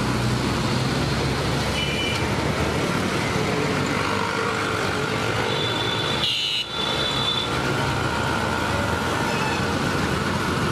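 Dense city road traffic close by: auto-rickshaw, bus and motorcycle engines running in a steady din, with short high horn beeps about two seconds in and again around six seconds.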